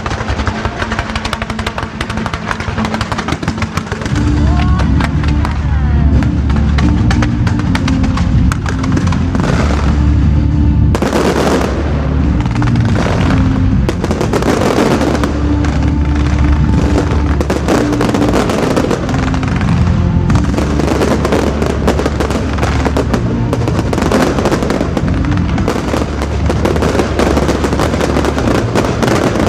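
Fireworks bursting and crackling nonstop over loud music with a heavy bass line; the music comes in about four seconds in.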